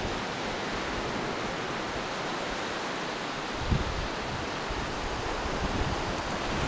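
Steady hiss of sea surf on a beach, with wind buffeting the microphone from a little past halfway.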